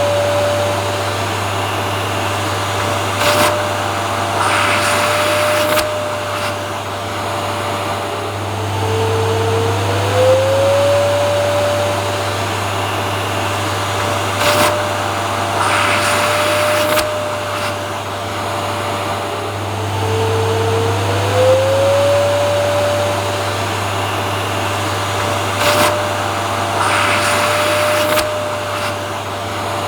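Vacuum cleaner running steadily. Its motor whine glides up in pitch and then holds, with short rushes of air noise now and then. The same stretch repeats about every ten seconds, as a loop.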